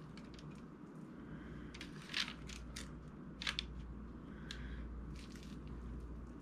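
Metal cookie scoop scraping and clicking in a glass bowl of stiff oat and peanut-butter mixture, and its release lever clicking as a mound is dropped. There are a few short, faint scrapes, the loudest about two seconds in and again about three and a half seconds in, over a low steady hum.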